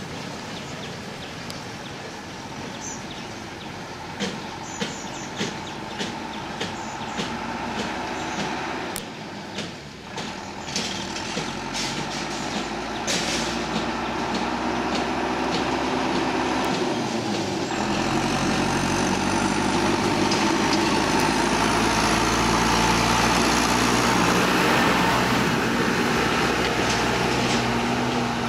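Renault tractor's diesel engine pulling a trailer of small bales, getting louder as it approaches and passes close by. Sharp rattling knocks come through the first half, and the engine note dips and recovers about two thirds of the way through.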